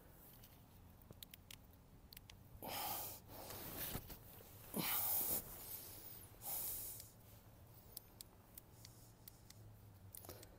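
Wind gusting against a tarp draped over a canvas tent, the fabric rustling in three short surges a couple of seconds apart, the middle one the loudest, with light scattered ticks between.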